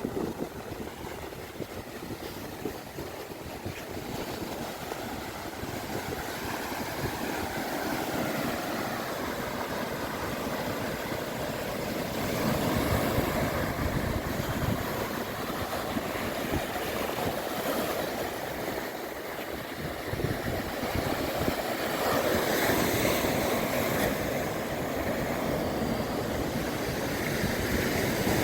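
Rough Caribbean surf breaking on a sandy beach, a steady rushing wash that swells louder as bigger waves come in, with wind buffeting the microphone.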